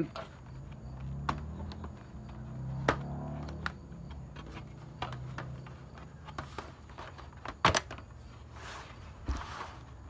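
Plastic clips of a laptop's bottom cover snapping loose as the cover is pried up by hand: a scattered series of sharp clicks, the loudest about three-quarters of the way through.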